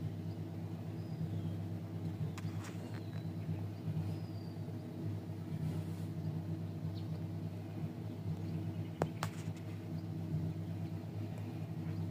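A steady engine hum idling in the background, with a few faint clicks and short, faint high chirps over it.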